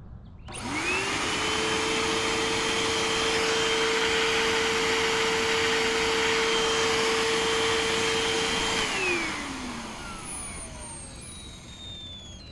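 Hoover WindTunnel Rewind bagless upright vacuum switched on. Its motor spins up quickly to a steady high whine with a rush of air, runs smoothly for about eight seconds, then is switched off and winds down with a falling whine.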